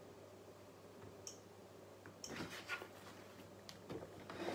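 Faint scattered clicks and rustles of handling close to a studio microphone, from fingers on a phone and hands on the microphone, over a low steady hum. The clicks bunch up about two seconds in, and a louder noisy burst comes right at the end.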